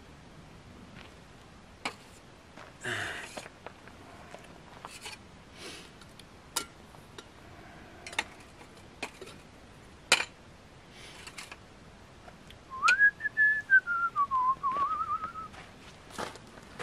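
A few sharp clicks and knocks as a drink can and cups are handled on a camp table, then a man whistles a short wavering tune for about three seconds near the end, starting high and sliding lower.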